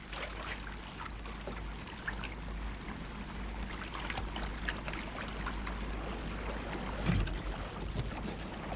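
Water sloshing and splashing as someone wades through shallow river water carrying a basket, a steady wash of water noise with small irregular splashes and a slightly bigger splash about seven seconds in.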